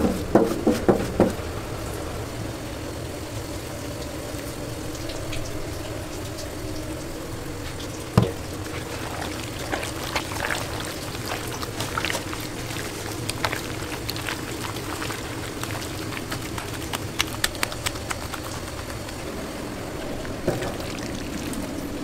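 Raw chicken pieces dropping into a steel bowl with a few wet thuds at the start, then being mixed by a gloved hand in a wet batter marinade: irregular squelching and slapping over a steady background hum.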